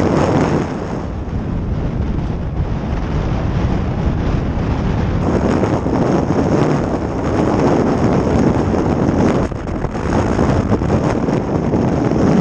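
Wind buffeting the microphone: a loud, rushing noise that swells and eases in gusts.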